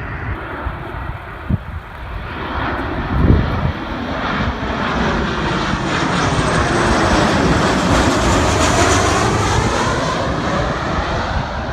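Airliner passing close by: engine noise builds over several seconds to a peak and eases slightly near the end, with a sweeping, phasing whoosh as it goes by. A brief thump about three seconds in.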